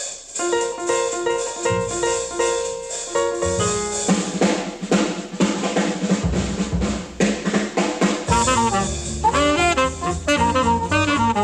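Bebop jazz recording: horns and drums play a short figure of repeated held notes over bass, then a saxophone takes off in fast, darting runs from about eight seconds in.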